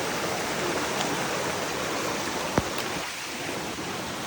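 Steady rushing water noise in the rainforest, with one sharp click about two and a half seconds in.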